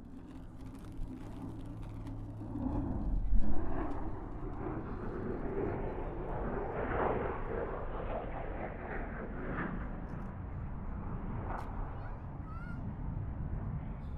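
Distant fighter jet's engine noise: a deep rumble with a crackling edge. It swells to a loud burst about three and a half seconds in.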